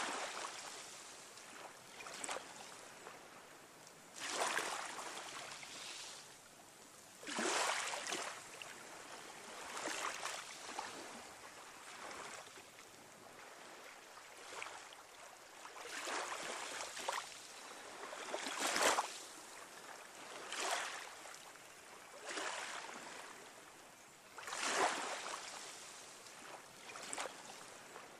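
Sea waves washing in: a rush of water that swells quickly and fades away, one surge every two to four seconds.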